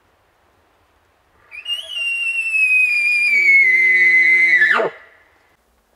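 Hunter blowing an elk bugle call to imitate a bull elk and work a bugling bull. One long high whistle starts about a second and a half in with a quick upward flick and slides slowly down in pitch for about three seconds. A low grunting tone joins underneath partway through, then the note drops away sharply.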